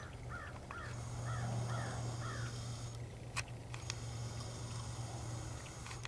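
A bird calling in the distance: about five short calls in quick succession, roughly two a second, over a steady low hum. Two sharp clicks follow a little past the middle.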